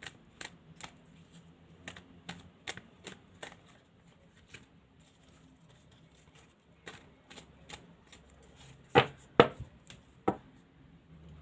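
Deck of tarot cards being shuffled by hand, the cards slapping together in a string of light clicks, with three louder clicks near the end.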